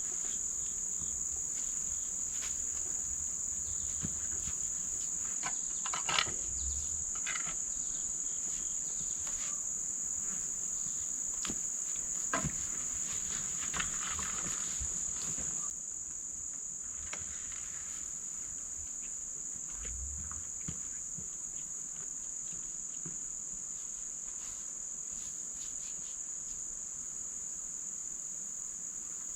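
Steady, high-pitched insect chorus, a continuous shrill drone that drops a little in loudness about halfway through. Scattered small clicks and rustles come over it in the first half.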